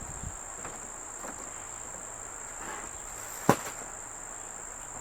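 Steady high-pitched insect trill, with one sharp knock about three and a half seconds in.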